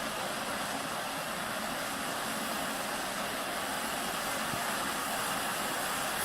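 Gas torch flame hissing steadily, heating a stuck plug in a cast iron engine block to loosen it.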